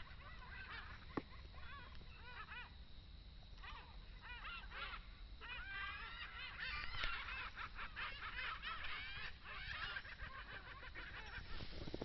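A flock of birds calling over one another, many short arched calls overlapping into a chatter that grows denser about halfway through. One sharp click about a second in.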